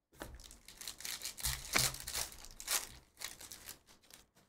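Trading card packaging crinkling and tearing as a card pack is opened and the cards are handled. It comes as an irregular run of short scrapes and crackles, loudest a little over a second in, thinning out near the end.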